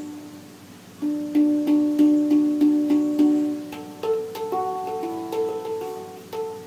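Hang (steel handpan) played by hand: a low note rings and fades, then about a second in it is tapped over and over in a quick even pulse, then higher notes join in about four seconds in for a short melodic phrase, each note ringing on under the next.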